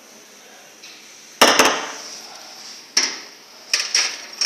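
Stainless steel milk-frothing pitcher tapped sharply on the counter several times, the first a double knock about a second and a half in, to settle the freshly steamed milk foam before pouring.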